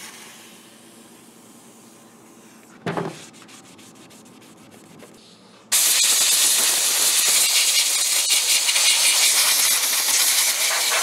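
Faint hiss of an aerosol WD-40 can spraying onto a chainsaw, with a short knock about three seconds in. From about six seconds in, loud, rapid scrubbing of the saw's muffler end with a hand-held scrub pad or brush.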